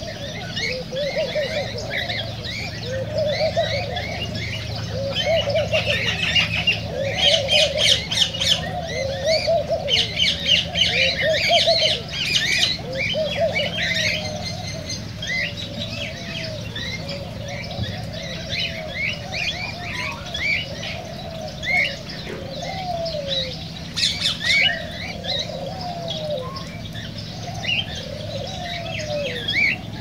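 Many aviary birds chirping and chattering at once in a dense, continuous chorus, busiest for a few seconds a quarter of the way in. Beneath it, a lower cooing call rises and falls, repeating every second or two.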